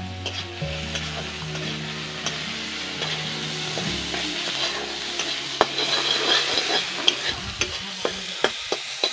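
Food sizzling as it fries in oil in a metal wok, while a metal spatula stirs it. The spatula scrapes and clicks against the wok, with sharp strikes coming more often in the second half.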